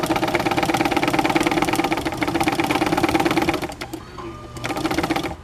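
Vintage White 3954 electric sewing machine running unthreaded on its foot pedal, a fast, even mechanical clatter that runs quietly, stops just before four seconds in, then runs again briefly.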